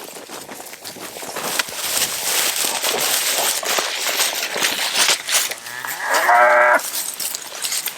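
Dexter cattle, with one moo about a second long near the end, over a loud rustling with many scattered knocks.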